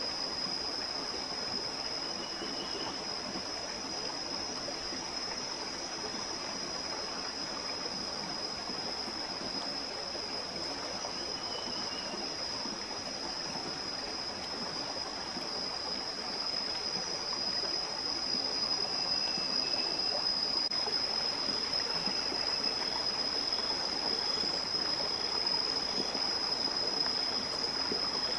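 Outdoor forest ambience: the steady rush of a running stream under a continuous high-pitched insect drone, with a few faint bird chirps.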